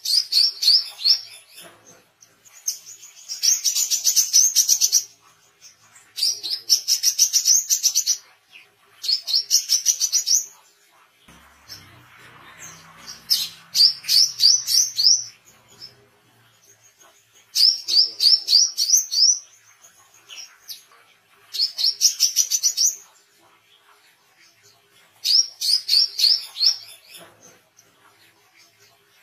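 Male brown-throated sunbird singing: about eight bursts of rapid, high, sharp repeated notes, each phrase one to two seconds long, with short pauses of a second or two between them.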